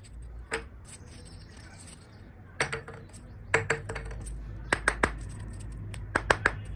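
Irregular light clicks and taps as small foam wheels and the wire axle parts are handled and set down on a tabletop, some coming in quick pairs and triplets, over a low steady hum.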